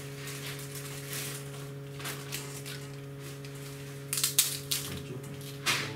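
Packaging being handled during a laptop unboxing: rustling and crackling, with louder sharp crackles about four seconds in and just before the end, over a steady low electrical hum.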